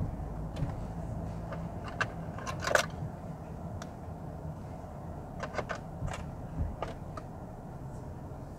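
Mercedes C180 sedan driving off slowly, heard from inside the cabin as a steady low hum. Scattered light clicks and rattles, bunched about two and a half seconds in and again around five to seven seconds in.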